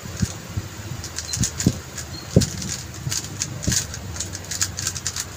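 A QiYi M Pro magnetic 3x3 speedcube being turned fast by hand: irregular flurries of quick plastic clicks and clacks as the layers turn, with a few soft knocks.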